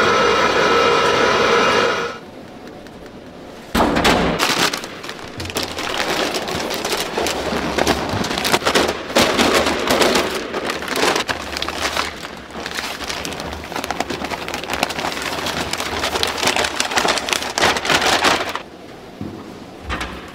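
Industrial noodle-dough mixer running, its steel paddle churning flour in a stainless-steel trough with a dense, crackling rush over a low rumble. This starts abruptly about four seconds in, after a steady machine hum at the start.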